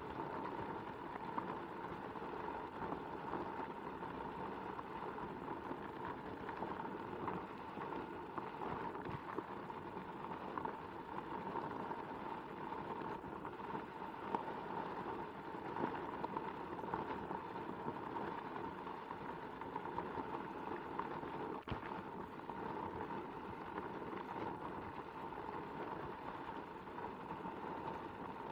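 Onewheel XR riding over a gravel dirt trail: a steady, dense crunch and crackle of the tyre rolling on grit, with a steady whine from the hub motor.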